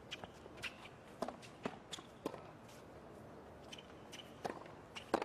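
Tennis ball being struck by racquets and bouncing on a hard court during a baseline rally: a string of sharp pops with footsteps on the court between them. There is a pause of about two seconds before more hits near the end.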